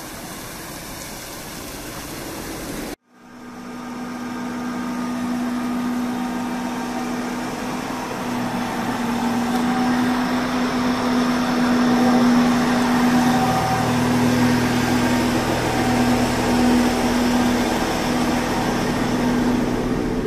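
Outdoor hiss from a small plaza fountain and street for about three seconds, then a diesel railcar idling at a station: a steady engine hum with a few fixed tones that grows louder as the train is approached and boarded.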